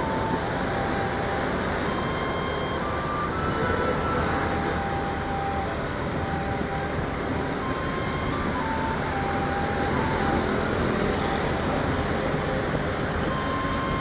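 Steady road-traffic and riding noise from a motorbike moving in traffic, with a faint tune of single held notes stepping up and down over it.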